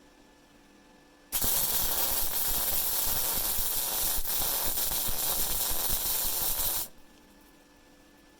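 Rohr MIG-250MI inverter MIG welder running a bead at power 5, wire speed 4: the arc starts about a second in with a steady crackle and sizzle, holds for about five and a half seconds, and cuts off abruptly when the trigger is released.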